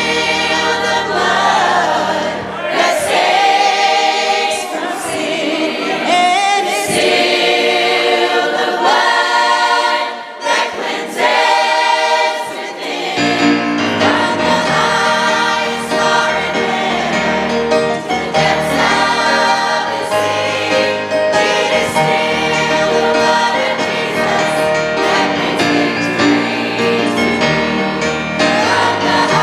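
Church choir singing a gospel song with instrumental accompaniment, a woman leading on a handheld microphone. The low accompaniment drops out about three seconds in and comes back in about thirteen seconds in.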